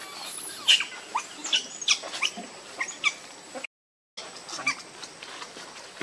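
Pig-tailed macaques squeaking: a run of short, sharp, high-pitched calls, several sliding downward, coming at irregular intervals, with a brief total dropout of sound a little past halfway.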